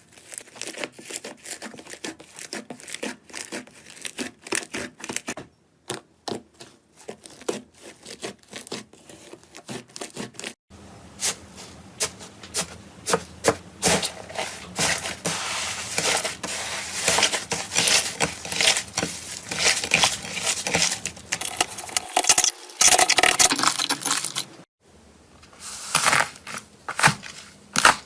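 Slime being squeezed, pressed and poked by hand, giving dense runs of small crackling pops and clicks. The sound stops abruptly a few times and gets denser and louder about eleven seconds in.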